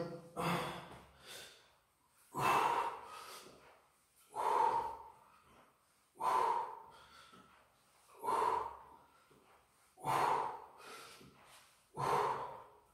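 A man's forceful exhalations from exertion, one about every two seconds, each marking a repetition of alternating hand-to-opposite-foot V-up crunches.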